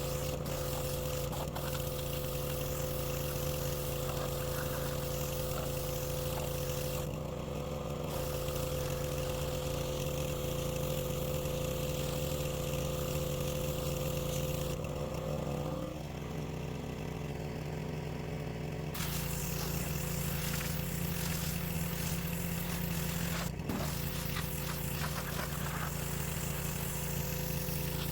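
Gas-engine pressure washer running steadily with the hiss of its spray. The spray hiss drops out briefly about seven seconds in and again for a few seconds around the middle, while the engine's pitch shifts.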